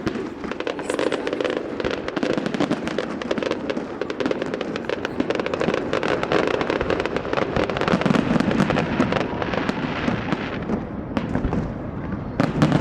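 Fireworks going off in a dense, continuous barrage: many rapid cracks and bursts overlapping one another without a pause.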